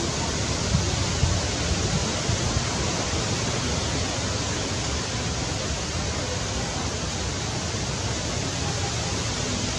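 Steady hiss with a low rumble underneath: wind blowing on the microphone outdoors.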